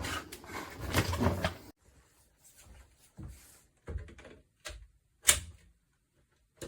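Plastic parts of a cordless stick vacuum being handled. A scraping rustle lasts about a second and a half, then come five separate plastic clicks and knocks, the loudest about five seconds in. The motor is not running.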